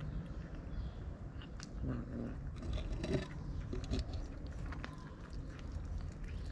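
Two kittens eating from a foil tray, with chewing and many small clicks and taps as they feed. A few short low calls come between about two and four seconds in.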